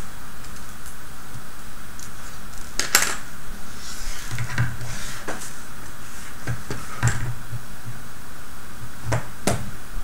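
Plastic OLLO robot-kit parts and model frame knocking and clicking against a wooden tabletop as they are handled and set down: a scattering of sharp clacks, the loudest about three seconds in.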